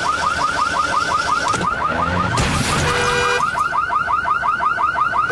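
Car alarm going off after a collision in a car park, a rapid string of rising chirps at about five or six a second. A short burst of noise comes about two and a half seconds in, followed by a brief steady beep.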